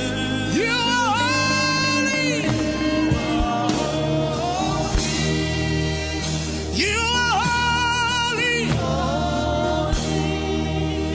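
Gospel worship music: a lead voice sings two long, wavering held phrases over steady sustained accompanying chords, with choir-like backing.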